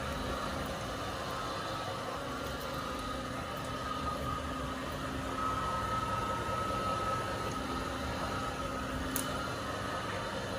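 A meat grinder's motor running steadily with a constant hum and a faint whine, grinding polymer clay.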